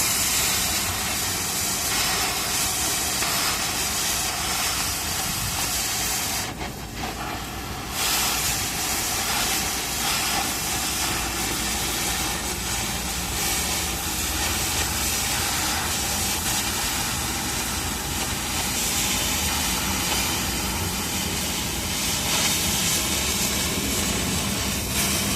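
Welding arc hissing steadily. It breaks off for about a second and a half some six seconds in, then strikes up again.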